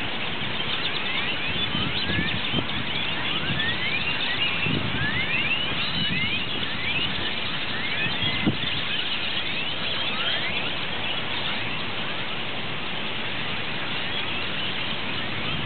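A huge flock of purple martins calling overhead as they gather to roost: many overlapping short rising chirps, over a steady background hum.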